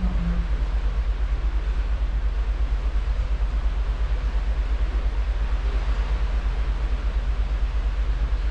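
Steady, heavy low rumble with a hiss above it, heard from a moving cruise ship's stern: wind buffeting the microphone mixed with the rush of the ship's wake.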